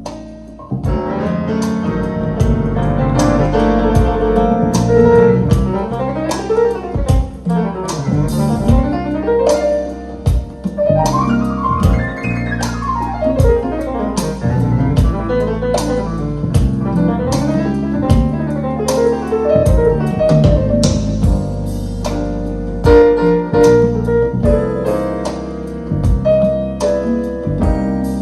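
Instrumental music with keyboard, bass and regular drum hits, played back on a hi-fi system (Lumin U1 mini streamer and RME DAC). A sweep rises and falls in pitch around the middle.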